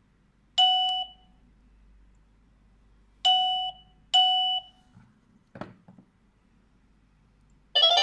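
Three short electronic beeps from the CC01 unit while its ringtone is being changed: one about half a second in, then two close together a few seconds later. A brief click follows, and just before the end a chime melody, the ringtone, starts playing.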